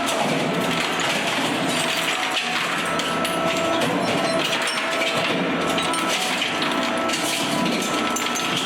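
Industrial mechanical shredder running as it shreds a Smith & Wesson M&P AR-15 rifle. It gives a loud, steady machine noise with a constant hum and continuous rattling and clattering of metal.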